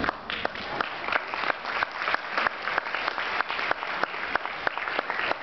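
A roomful of people applauding, with single hand claps standing out from the general clapping.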